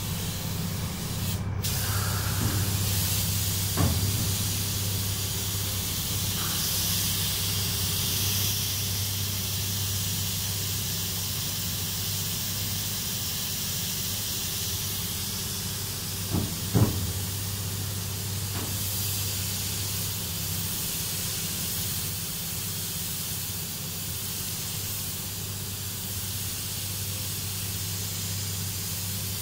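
Paint spray booth running: a steady airy hiss over a low hum, with a few brief knocks.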